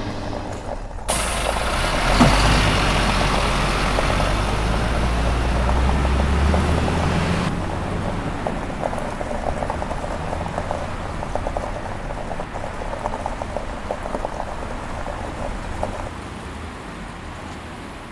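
A truck-like engine rumble with hiss starts suddenly about a second in, its low hum rising slowly, and cuts off sharply a few seconds later. Quieter crackling and scattered small clicks follow.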